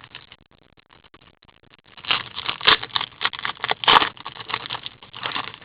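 Crinkling and rustling of a trading-card pack and its cards being handled, a dense run of small crackles starting about two seconds in.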